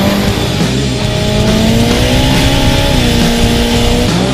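Rock music with electric guitar over a Honda S2000 engine accelerating hard, its pitch climbing and then dropping about three seconds in as it shifts gear.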